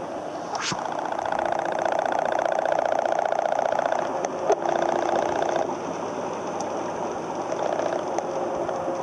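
Steady mechanical whirring with a fast, even pulse. There is a faint click about four and a half seconds in.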